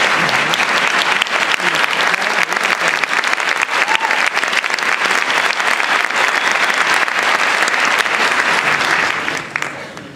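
Audience applauding, a dense patter of many hands clapping that dies away about nine and a half seconds in.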